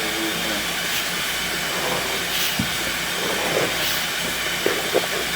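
Steady, loud hiss of water kept running into the drain line, with a few light knocks near the end.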